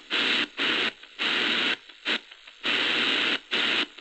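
Shortwave static from the Prunus J-160 portable radio's speaker, cutting in and out in short bursts with brief silent gaps as the dial is turned and the tuning steps between stations.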